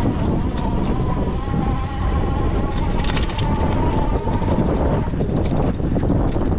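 Wind buffeting the microphone and the rumble of an ENGWE X24 e-bike riding over rough offroad ground. A thin steady whine runs through the first five seconds or so and then stops, and a brief rattle comes about three seconds in.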